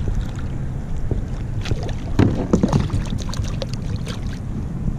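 Water and handling noises aboard a fishing kayak, over a steady low rumble. A cluster of sharp clicks and knocks comes about two seconds in and is loudest there.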